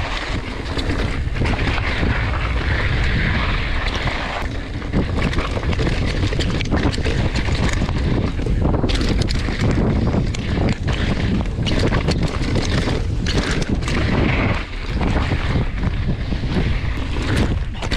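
Wind buffeting a mountain biker's action-camera microphone on a moving bike, with the tyres rumbling over rock and frequent knocks and rattles from the bike.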